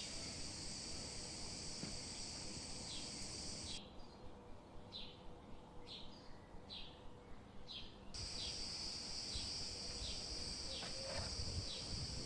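Insect chorus, a steady high buzz of crickets or cicadas, that stops about four seconds in and starts again about four seconds later, with short chirps repeating about twice a second.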